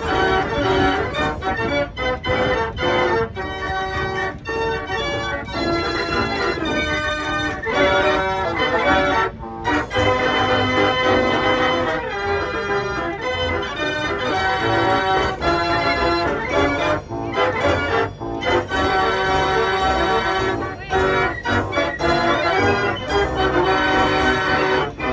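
White's Mammoth 98-key Gavioli fairground organ playing a tune: pipe chords in short, detached notes over a steady bass line, with two brief breaks between phrases.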